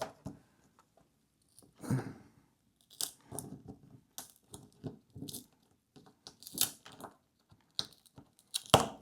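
An adhesive label being peeled and picked off a refrigerator door, making a series of short, irregular tearing and scraping sounds.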